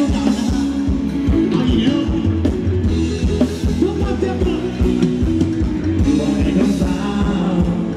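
Live Phetchaburi ramwong dance music from a band: a singer over drum kit and bass, with a steady beat.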